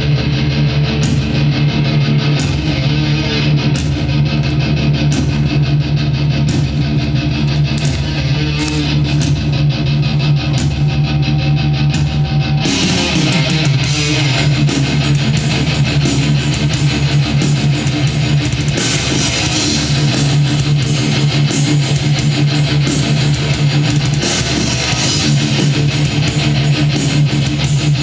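Heavy metal music with distorted electric guitar and bass, playing continuously. The music gets fuller and brighter about halfway through.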